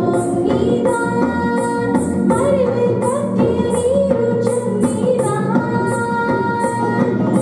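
A woman singing a Tamil Christian song in Carnatic style into a microphone, with held, wavering notes and gliding ornaments. Instrumental accompaniment runs under her, with a bass line and a steady, high percussion beat.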